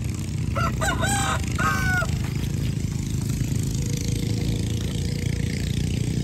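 A rooster crowing once, about half a second in, in several short connected notes, over a steady low rumble.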